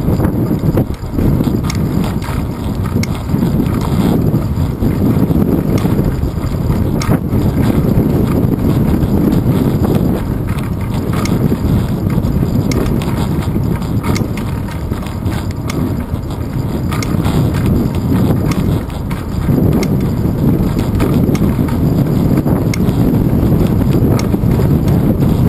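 Wind buffeting the microphone of a handlebar-mounted action camera on a moving bicycle, a loud rumble that swells and eases, with small clicks and rattles from the bike rolling over the path.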